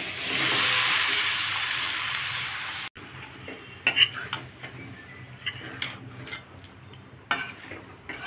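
A loud steady hiss of frying for about three seconds as marinated chicken, potatoes and tomatoes are tipped into a metal kadai, cut off suddenly. Then a wooden spoon stirs the chicken in the kadai, with scrapes and a few knocks against the pan.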